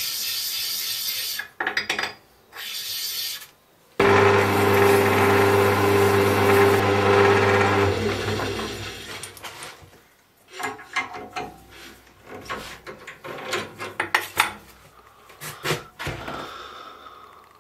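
Abrasive paper sanding a brass band in two short spells of hiss. Then a machine motor starts suddenly with a steady hum, runs about four seconds and winds down, followed by scattered clicks and scrapes of the part being handled.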